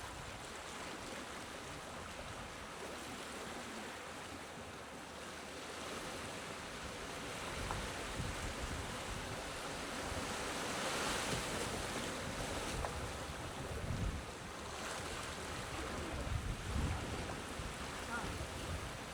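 Small, gentle waves lapping and washing on a beach, swelling to a peak about ten to twelve seconds in and easing again, with low wind buffeting on the microphone.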